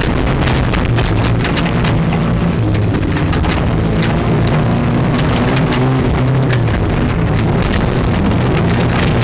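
Truck engine running hard, heard from inside the cab, its pitch shifting up and down with the throttle, with frequent knocks and rattles as the truck bounces over a rough dirt trail.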